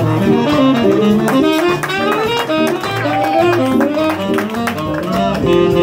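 Live jazz band playing, with a saxophone soloing in quick runs of notes over the rhythm section's steady beat.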